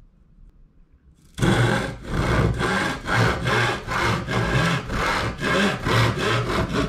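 Handsaw cutting through a thin sheet of light wood in quick, even back-and-forth strokes, about three a second, starting about a second and a half in.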